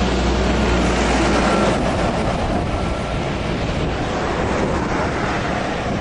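Highway traffic going past: the steady rush of tyres and engines, with a heavy low rumble in the first second or two that then eases, and a faint tyre whine.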